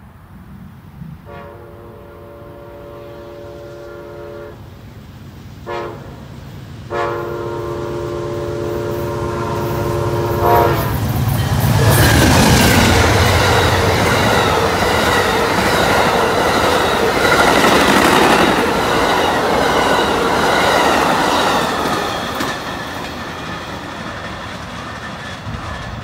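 Amtrak passenger train's locomotive horn sounding a chord: a long blast, a short one, then another long one, the grade-crossing warning. The train then passes close by, its locomotive and a long line of passenger cars rolling over the rails, loudest for several seconds and then fading.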